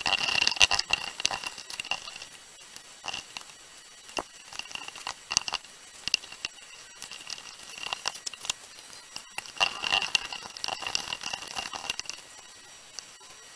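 Hands rolling a clay coil back and forth on a board: irregular soft patting and rubbing of skin on damp clay, with scattered light taps and clicks that come in clusters.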